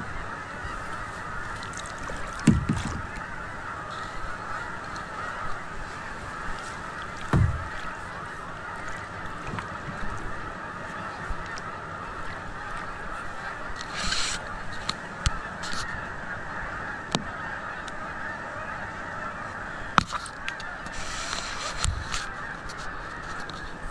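A large flock of Canada geese honking without a break, many calls overlapping. Two low thumps stand out about two and a half and seven seconds in, with short bursts of hiss near the middle and again near the end.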